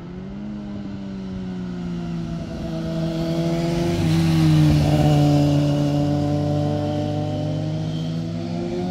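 Green Kawasaki Ninja sport bike's engine growing louder as it approaches through a bend, the note stepping down in pitch as it passes close about four seconds in, then fading as it rides away.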